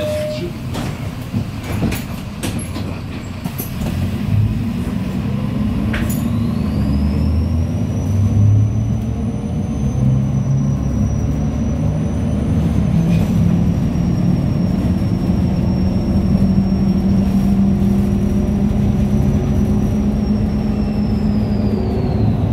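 Inside a MAZ 103.485 city bus with a Mercedes-Benz engine and Allison automatic gearbox: the drive noise builds as the bus speeds up and then runs steadily, with a few rattles and knocks in the first seconds. A thin high whine comes in about six seconds in, holds steady, and drops away near the end.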